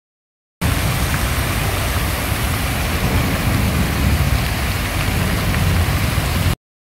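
Water from a large fountain's jets spraying and splashing into the basin: a steady rushing hiss with a heavy low rumble underneath. It starts abruptly about half a second in and cuts off abruptly near the end.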